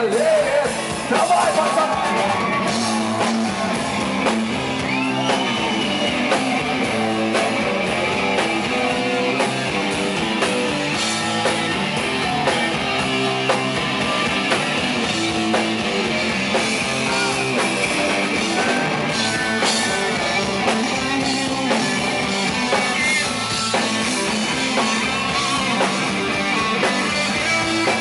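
Rock band playing live, an instrumental passage of electric guitar over bass and drums.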